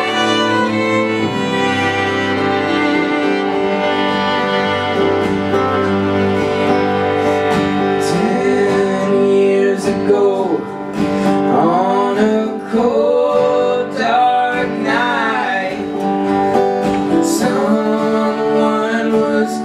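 Live band playing a country song, with fiddle and guitar to the fore.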